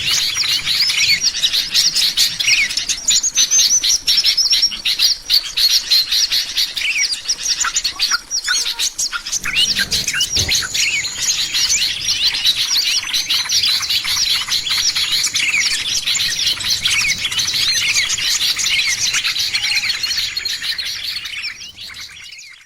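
Dense chorus of many small songbirds chirping and twittering without pause: a lure recording for attracting small birds. It fades out near the end.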